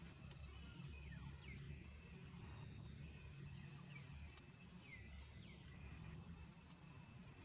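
Faint outdoor background: a low steady hum, with several faint, short high calls that slide down in pitch.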